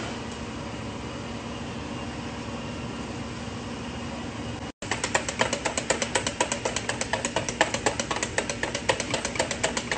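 A steady hiss with a low hum, then, after a brief break about five seconds in, a wire whisk beating egg yolks in a stainless-steel bowl, its wires clicking rapidly against the metal.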